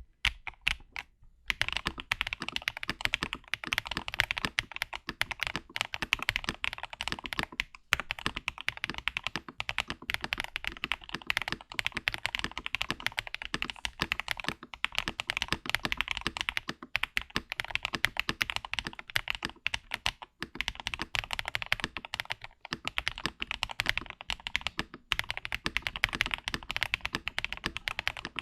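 Fast, continuous typing on an Akko ACR Top 75 acrylic top-mount mechanical keyboard with linear switches: a steady stream of key clacks, broken by a short pause about a second in.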